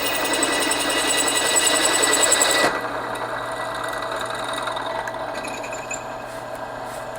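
Drill press running at 800 RPM, a 5/16-inch Rodman Reaper bit cutting into a steel brake rotor with a steady high whine. The cutting stops suddenly about two and a half seconds in, and the press keeps running more quietly with a few faint ticks.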